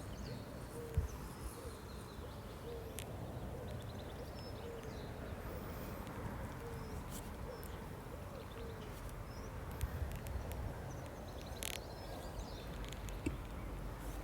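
Outdoor nature ambience: a steady background hiss with a bird giving a short low call about once a second and faint high chirps. A few sharp clicks or taps cut through, the loudest about a second in.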